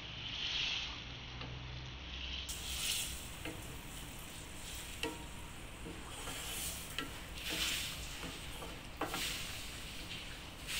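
A wooden spatula stirring thick lentil dal in a steel pan: wet stirring with scattered light knocks of the spatula against the pan.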